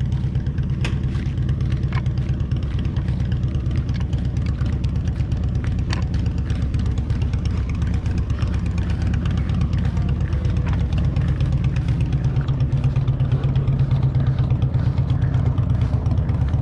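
A loud engine running steadily nearby, a low, even rumble that grows a little stronger in the second half.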